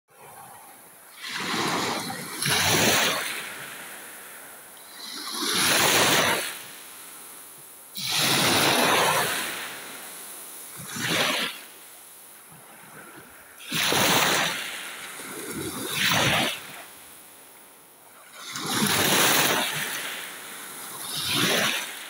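Small sea waves lapping and washing at the shoreline: about nine surges of splashing, every two to three seconds and some in close pairs, over a low steady wash.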